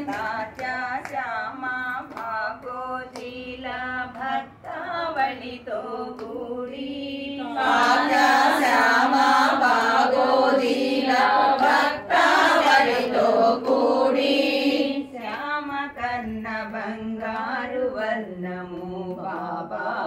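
A group of women singing a Telugu devotional song to Sai Baba together, louder for several seconds in the middle.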